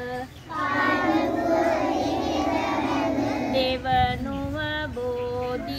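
A group of children chanting a Buddhist worship verse in unison. About three and a half seconds in, a single voice takes over and chants the next phrases alone, in call-and-response.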